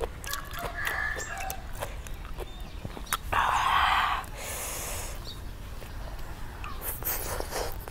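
Eating sounds: fingers tearing and picking at grilled chicken with small clicks and crackles, a loud breathy exhale about three seconds in, then a bite into the chicken near the end.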